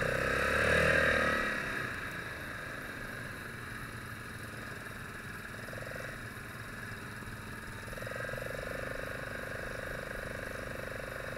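ATV engine running at low speed on a gravel road, with tyre and road noise. It is louder in the first second or two, then settles to a steady hum.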